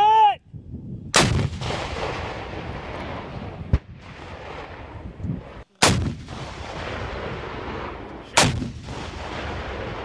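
AT4 anti-tank rocket launchers firing: three loud blasts, about a second in, just past the middle and about two-thirds through, each followed by a long echo that fades slowly, with a smaller sharp crack between the first two. A brief warbling tone sounds at the very start.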